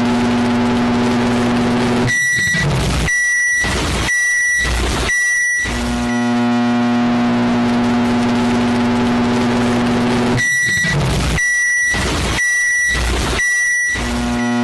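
Microwave oven running with a steady low hum, then four short high beeps about a second apart as the cycle ends. The hum starts again, four more beeps follow, and the hum resumes near the end.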